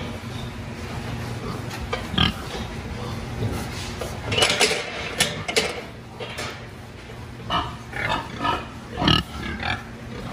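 Hogs squealing and grunting in irregular clusters while being loaded onto a livestock truck, over a steady low hum. The loudest squeals come around the middle and near the end.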